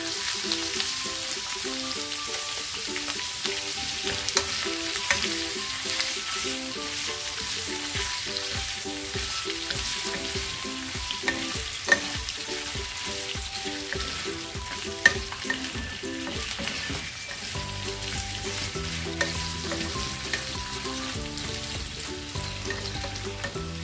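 Boiled pork belly chunks sizzling in hot oil in a pan while a wooden spatula stirs them, with a steady frying hiss. Two sharp clicks, about halfway and two-thirds of the way through, stand out.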